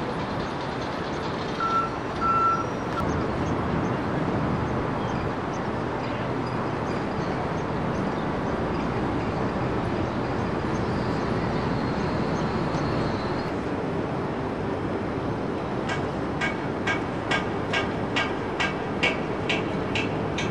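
Steady outdoor city background noise with a low hum like distant traffic. Two short high beeps come about two seconds in. Near the end there is a run of sharp, regular clicks, about two a second.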